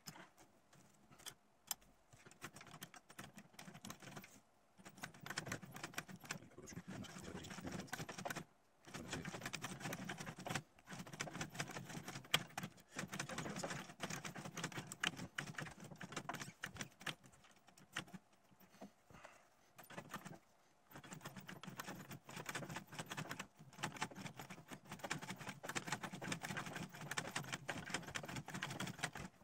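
Vintage domestic sewing machine stitching through leather: runs of fast mechanical clicking lasting several seconds, stopping briefly several times.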